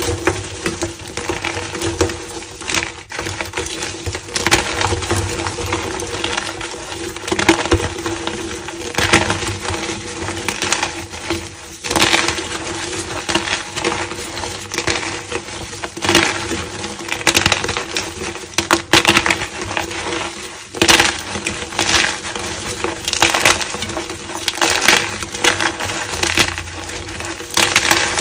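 Blocks of gym chalk being crushed and crumbled: a dense, continuous run of dry crunching and crackling, with a louder crunch every second or two.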